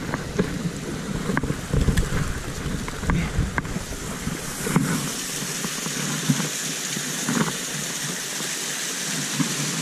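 Steady rush of a small waterfall and mountain stream. For about the first half it is mixed with knocks and low rubbing of clothing on the body-worn microphone as the wearer climbs over rocks. After that the water hiss carries on alone, brighter.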